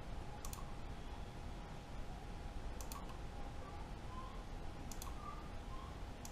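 Computer mouse clicking a few times, every couple of seconds, some of the clicks in quick pairs, over a faint steady hum.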